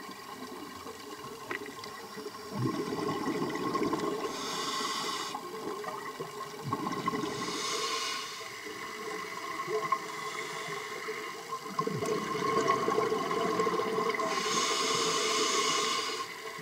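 Scuba regulator breathing heard underwater: hissing inhalations alternating with bursts of exhaled bubbles rushing past. A steady faint whine sits underneath.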